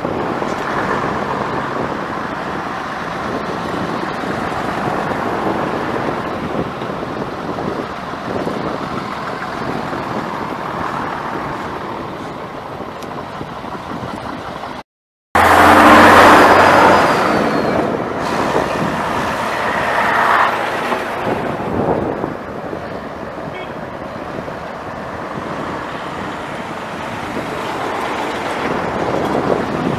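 Vintage London RT double-decker buses driving past one after another, their diesel engines running. After a brief dropout just before halfway, one bus is loudest as it passes close by, then fades.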